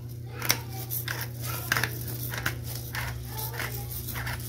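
Thin plastic bag crinkling and rustling in quick irregular crackles as a hand works crushed cornflake crumbs and seasoning inside it.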